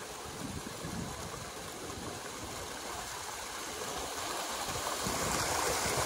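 River water flowing steadily, slowly getting louder in the last couple of seconds.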